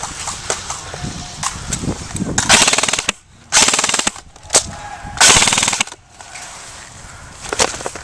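Airsoft electric rifle firing on full auto: three short bursts of rapid shots in quick succession, each well under a second long.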